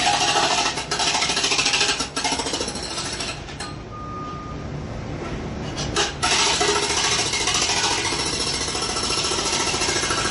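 Jackhammer hammering in rapid, continuous blows. It stops for about two and a half seconds a little over three seconds in, leaving a low rumble, then starts again.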